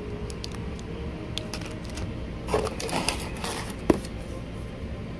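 Plastic snack wrappers crinkling and rustling as a wrapped gummy candy is handled and set back among other packaged snacks, with scattered light clicks and a busier patch of rustling ending in one sharp click about four seconds in.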